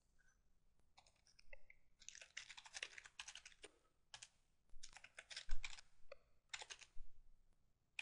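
Computer keyboard typing: several quick runs of keystrokes with short pauses between them, starting about a second in.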